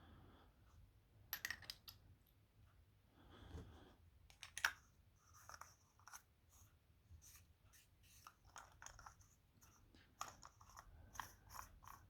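Faint, irregular clicks and taps of hard parts being handled, from the parts of an ICS 40mm airsoft grenade shell. The sharpest click comes about four and a half seconds in.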